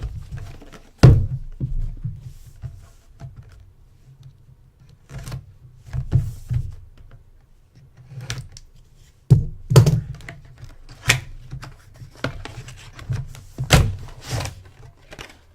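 A series of irregular thuds and knocks from a trading-card box and packs being handled and set down on a tabletop. The loudest thud comes about a second in, with more clustered later on.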